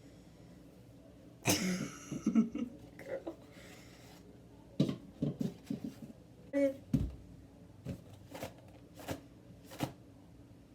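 Baking things being handled and set down: a short burst of noise about a second and a half in, then a string of sharp knocks and clicks, a few a second, through the second half.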